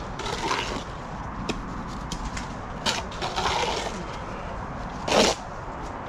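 Steel brick trowel scraping and spreading mortar on perforated clay bricks: a few short scrapes with a sharp click near the middle, and a louder, brief scrape about five seconds in.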